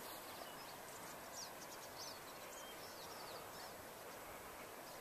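Faint outdoor ambience: a steady low hiss with scattered short, high chirps of small birds calling, busiest in the first few seconds.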